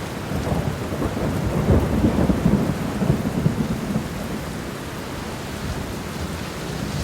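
Steady rain, with a low rumble of thunder swelling from about a second in and easing off after about four seconds.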